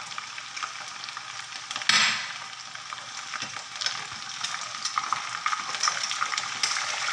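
Chicken pieces frying in hot coconut oil in a pan, a dense crackling sizzle, with a spoon stirring and scooping the fried pieces out. A louder burst of sizzle about two seconds in.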